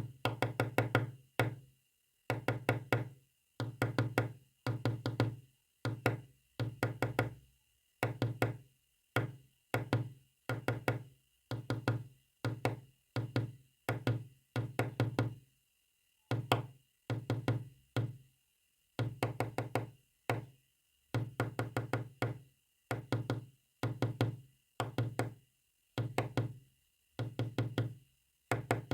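Rapid knocking in groups of three to six quick strokes, about one group a second with short pauses between, tapped out as Morse code.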